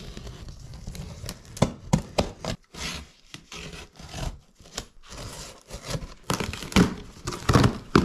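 Irregular clicks, knocks and rubbing from objects being handled, growing louder and more frequent near the end.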